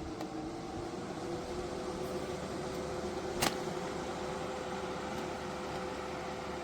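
Electric fan running steadily, a humming whir whose pitch creeps up slightly in the first second or two. One sharp click about three and a half seconds in.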